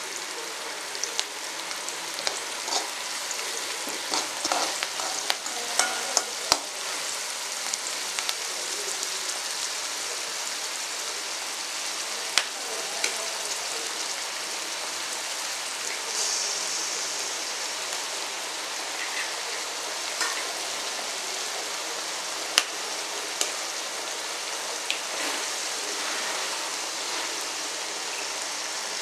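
Chopped onions sizzling steadily as they fry in oil in a steel kadai, with sharp clicks of a metal spoon against the pan as they are stirred during the first several seconds.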